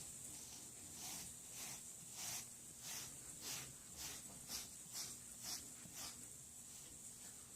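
A pet brush raked through fur in short, quick strokes, about two a second, faint.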